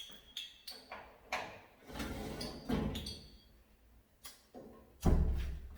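Scattered knocks and clicks of kitchen items being handled and set down, with one heavy thud about five seconds in that is the loudest sound.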